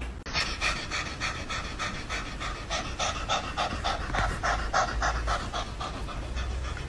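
Orange tabby cat panting with its mouth open: a quick, even run of short breaths, about four to five a second.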